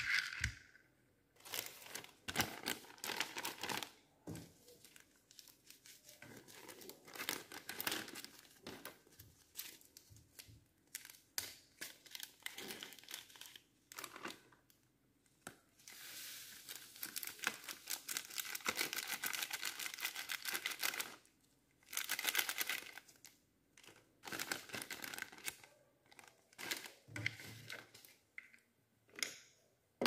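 Clear plastic zip bag crinkling and rustling as hands handle it, in stop-start bursts with one longer stretch of continuous crinkling a little past the middle.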